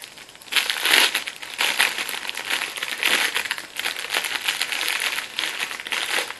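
Clear cellophane wrapper crinkling as it is pulled open and worked off a bath bomb by hand. The crinkling starts about half a second in and stops just before the end.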